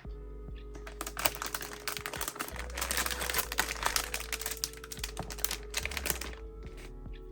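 Background music, with a dense run of quick small clicks and rustles from about a second in that stops about six seconds in.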